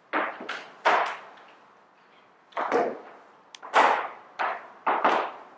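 Sharp hand slaps on the body, about ten in irregular clusters with a pause of over a second near the middle, each trailing off in a short room echo.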